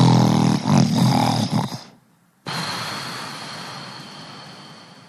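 A person snoring: a loud, pitched, vibrating snore that stops about two seconds in. After a short gap comes a long breathy breath that slowly fades.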